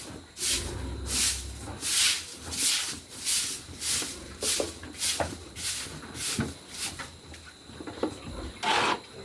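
Rhythmic scraping strokes of a brush or broom sweeping a pig-pen floor, about one and a half strokes a second, thinning out after about seven seconds, with one louder stroke near the end and a few small knocks.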